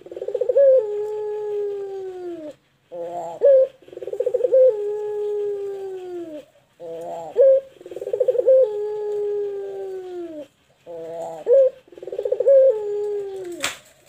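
Barbary dove (puter) cooing four times, each coo a quick stuttering start followed by one long drawn note that slides down in pitch. A sharp click sounds near the end.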